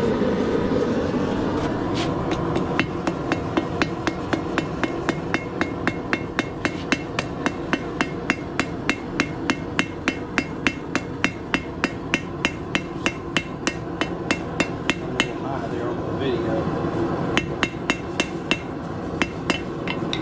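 Blacksmith's hammer striking hot steel on an anvil in a quick, steady run of ringing blows, rounding the square taper into round stock. The blows start about two seconds in, pause briefly about three-quarters of the way through, then resume.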